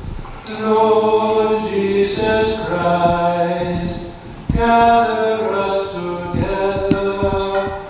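A hymn sung slowly in held notes, in phrases broken by short breaths about half a second and four and a half seconds in.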